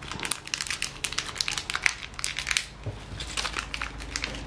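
Hand handling noise as a fishing stringer is rolled up and packed into a small kit: irregular crinkling and crackling with many small clicks.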